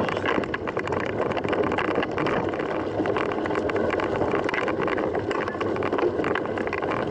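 Mountain bike rolling over a rough dirt trail: a steady rush of tyre noise crackling with many small ticks, mixed with wind on the microphone.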